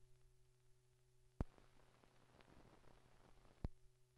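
Near silence on an old film soundtrack: a faint steady hum, broken by two sharp clicks about two seconds apart, with faint noise between them.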